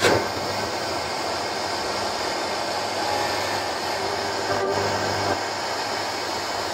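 Steady hiss of radio static from a Sanyo M9998LU boombox's tuner, tuned between stations while its tuning knob is turned.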